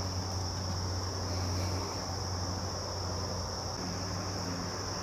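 Insects calling in a steady high-pitched drone, over a low steady hum.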